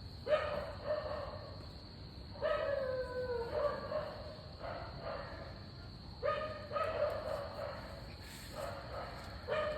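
A dog barking and whining in about five drawn-out calls, one of them sliding down in pitch.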